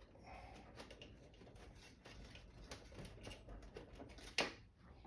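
Faint handling noise from a power cable being fetched and handled: light rustling and small scattered clicks, with one sharp click about four seconds in.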